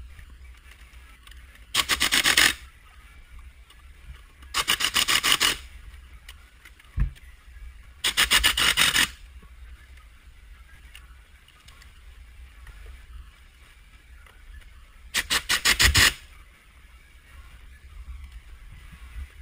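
Pneumatic impact wrench hammering in four bursts of about a second each while it tightens bolts on a Kawasaki 750 SX jet ski engine being installed. A single short knock comes between the second and third bursts.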